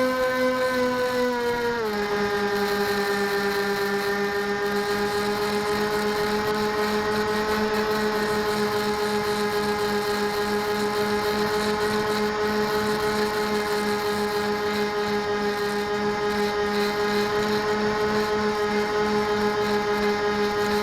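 RC airplane's motor and propeller running with a steady whine. The pitch drops as the throttle is eased back about two seconds in, then holds level.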